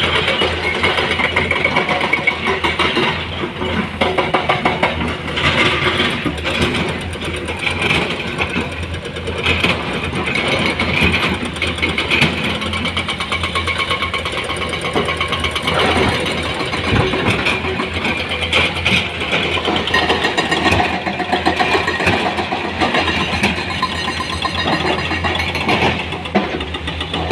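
Komatsu hydraulic excavators working, their diesel engines running steadily under a dense, irregular clatter of knocks and scraping from buckets digging and dropping soil and rock.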